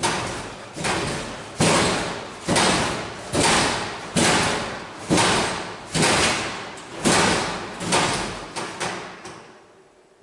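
A run of about a dozen loud, heavy bangs, roughly one a second, each ringing on with a long echo down a hard-walled corridor; the last few come closer together and fainter.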